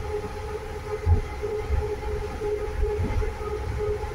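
Small passenger train running on its tracks, heard from on board: a steady, slightly pulsing motor whine over a low rumble, with a low thud about a second in and another near three seconds.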